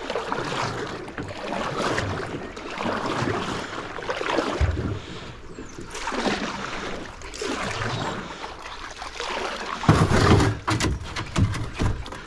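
Small boat being paddled across a farm dam: water splashing and sloshing around the hull, with a dull knock on the boat about a third of the way in and a louder one near the end.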